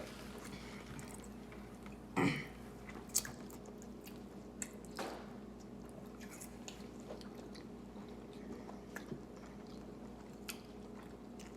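Close-up mouth sounds of someone chewing steak: wet smacks and small clicks, with a brief louder mouth sound about two seconds in.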